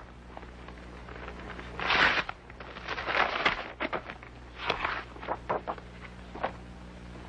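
Sheets of paper rustling and crackling as a document is pulled out and unfolded, with a louder rustle about two seconds in and scattered soft clicks after, over a steady low hum.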